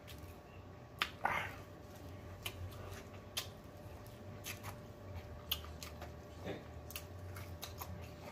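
Close-miked chewing of fried chicken with wet lip smacks and sharp mouth clicks scattered irregularly throughout, the loudest about a second in.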